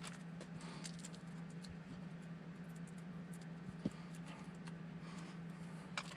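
Faint, scattered light clicks and taps, a little louder about 4 seconds in and again near the end, over a steady low hum. The clicks are typical of small parts and tools being handled.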